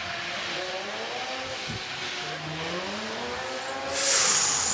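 Drift car's engine revving, its pitch rising and falling, over steady tyre noise as it slides through a corner. About four seconds in comes a sudden loud, noisy burst as the car crashes and rolls over the tyre barrier.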